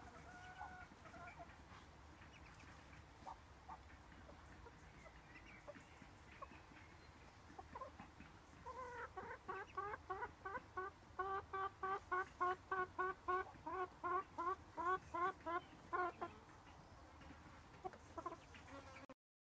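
A fowl calling in a quick series of short, rising notes, about two a second, lasting some seven seconds from about nine seconds in, with a few softer scattered calls before.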